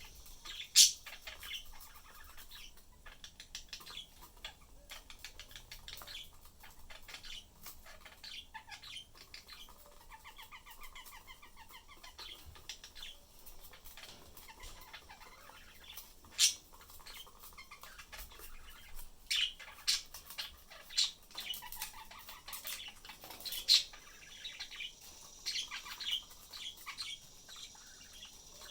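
Pet budgerigars chattering with a soft warble and sharp high chirps, the chirps coming now and then and clustering between about 19 and 24 seconds in.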